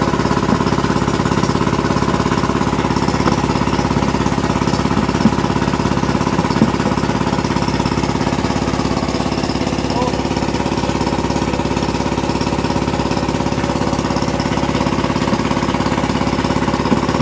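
Small engine running steadily at a constant speed with a fast even chugging, the motor of a pump draining the pond. There are a couple of brief clicks about five and six and a half seconds in.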